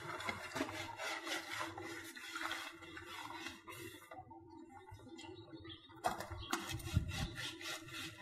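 Large dong leaves rustling and scraping against a woven bamboo winnowing tray as they are laid out and pressed flat, in irregular handling sounds. There is a quieter stretch a little past the middle.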